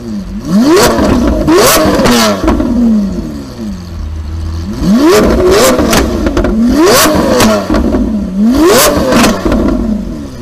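Lamborghini Aventador's V12 being revved hard while standing still: about six quick blips in two groups, each climbing steeply in pitch and falling back, with sharp cracks at the top of each blip.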